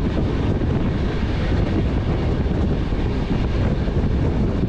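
Passenger train running at speed, heard from an open coach door: a steady rumble with wind buffeting the microphone.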